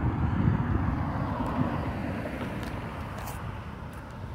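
Cars driving across a railroad crossing: their engine and tyre noise fades as they pass, with a few faint clicks in the second half.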